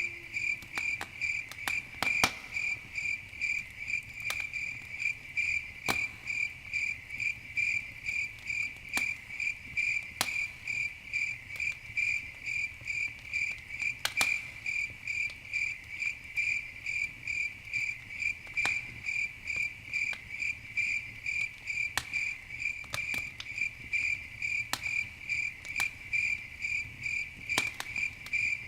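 A cricket chirping steadily, a little over two chirps a second, with the irregular sharp pops and crackles of a wood campfire.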